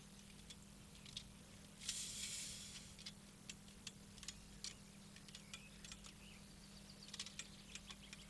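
Faint, scattered clicks and taps from a surveying tripod's metal legs and leg clamps as the legs are unclamped and slid out, with a short scraping rustle about two seconds in and a closer run of clicks near the end. A low steady hum lies underneath.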